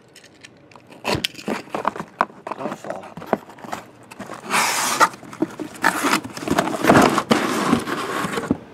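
Shrink-wrapped trading card boxes being slid out of a cardboard shipping case and stacked: cardboard scraping, plastic wrap rustling and light knocks, with a louder scrape about four and a half seconds in.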